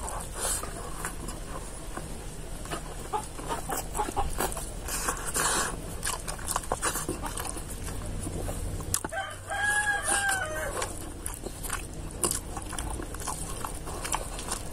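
Close wet chewing and mouth smacks of a person eating rice by hand, with many short clicks. About nine seconds in, a rooster crows once in the background, one call lasting about a second and a half.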